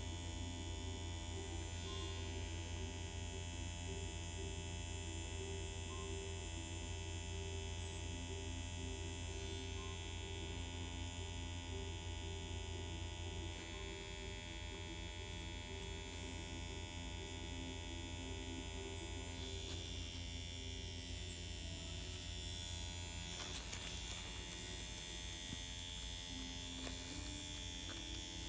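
Permanent-makeup pen machine running with a steady electric buzz and hum, its tone shifting slightly now and then.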